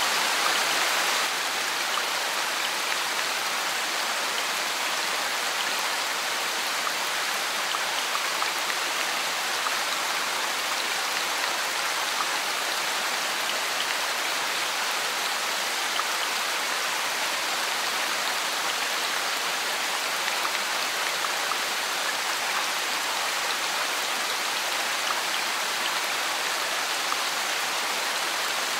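Heavy rain falling steadily on a paved street: a dense, even hiss, a little louder for about the first second, then constant.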